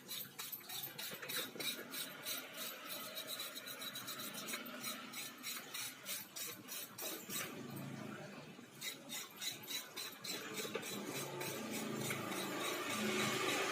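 Ratchet wrench clicking in fast, even strokes, about three to four a second, as bolts on a Yamaha Mio scooter engine are tightened, with a short pause partway through.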